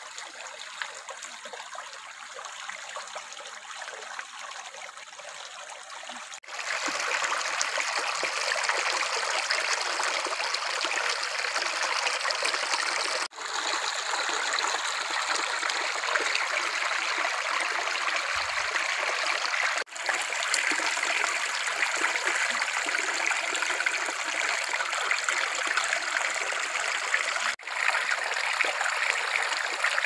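Shallow stream running and trickling over rocks, a steady rush of water. It steps up sharply in loudness about six seconds in, with three momentary dropouts later on.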